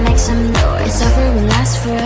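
Electronic pop background music with a heavy bass and a steady beat.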